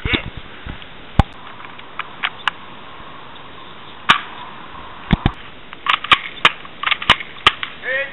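Airsoft guns firing irregular single shots, about a dozen sharp pops, coming faster in the second half.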